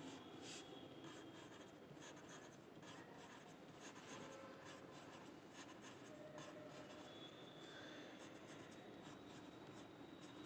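Faint scratching of a red colored pencil on paper in many short, repeated strokes.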